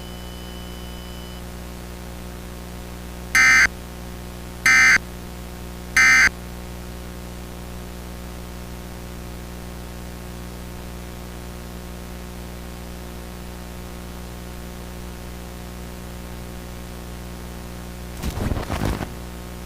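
Three short, shrill digital data bursts about a second apart over a steady electrical hum and static: the Emergency Alert System end-of-message tones that close a broadcast warning. Near the end comes a brief, warbling, distorted sound.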